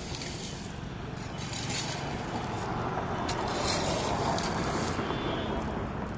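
An engine running steadily, with a rushing noise over it that grows louder a little past the middle.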